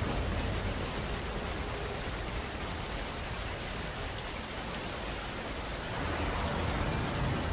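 Steady rain falling, an even hiss, with a low rumble that eases off and then swells again about six seconds in.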